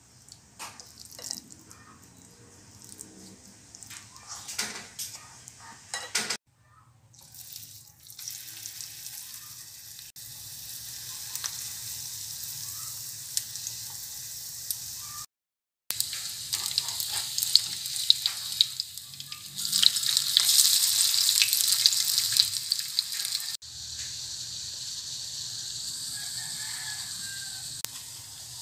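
A fritter of tiny shrimp batter frying in a pan of hot oil: a steady sizzle with many small crackling pops, loudest about two-thirds of the way through. The first few seconds hold only soft scooping and tapping of the batter in a bowl.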